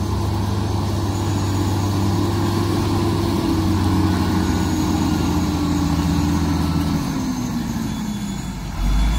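Heavy diesel engine of a loaded dump truck running steadily as the truck reverses slowly over gravel, its note dropping near the end as it slows.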